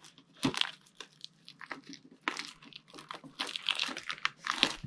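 Stiff plastic Yu-Gi-Oh card packaging being crinkled and torn open by hand, in irregular bursts of crackling.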